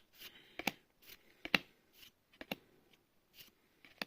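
Handling a Magic: The Gathering booster pack and its cards: a handful of sharp snaps and short papery rustles at irregular intervals.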